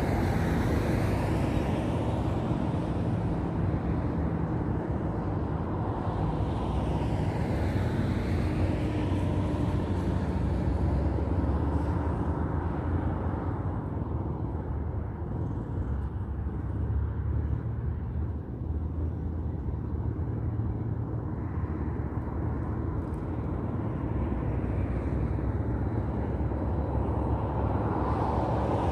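Cars passing on a nearby road over a steady low rumble: one going by about a second in, another around eight seconds in, and a third near the end.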